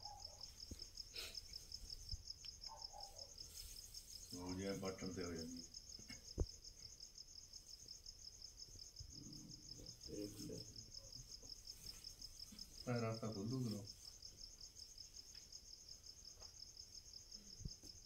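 Crickets chirring steadily in a fast, even pulse on two high pitches, with low voices murmuring briefly three times and a single sharp click about six seconds in.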